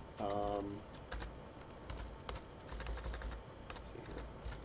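Computer keyboard typing: irregular, scattered keystrokes while code is entered. Near the start, a short steady hum of a voice, about half a second long, is the loudest sound.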